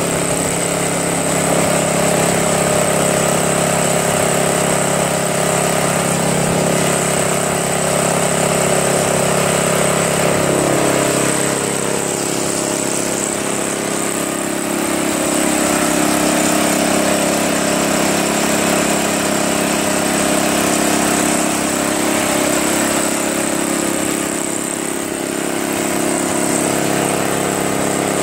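Tecumseh single-cylinder engine on a Craftsman 522 two-stage snowblower running steadily off choke after a quick carburetor clean; its pitch steps up slightly about ten seconds in.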